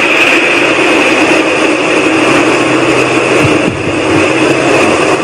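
A loud, steady whooshing sky noise, between a whoosh and a rumble, of the kind reported as 'strange sounds in the sky'; the recorder insists it is not aircraft noise.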